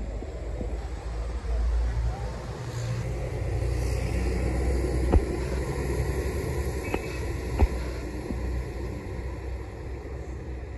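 Low, steady outdoor rumble that swells about a second and a half in. Two sharp clicks come about five and seven and a half seconds in.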